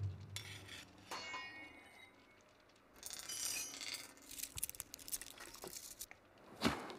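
Advert sound effects of a steel rod. It rings once about a second in, then gives a run of quick metallic clicks and scrapes as it is bitten, with a final strike near the end.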